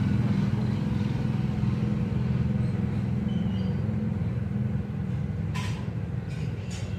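Steady low rumble, with two short sharp sounds near the end.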